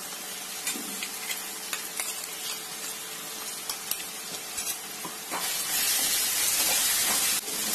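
Onion-tomato masala sizzling in hot oil in a pan as a ground ginger, garlic, coconut and green chilli paste is added and stirred in with a spatula, with light taps and scrapes. The sizzle gets louder about five seconds in, while the paste is stirred through the oil.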